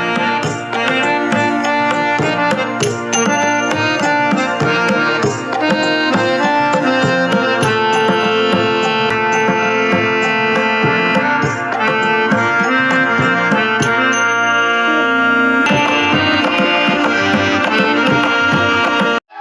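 Instrumental music with a melody over frequent drum strokes, played on a Sony portable Bluetooth speaker as a sound test. The track cuts off just before the end.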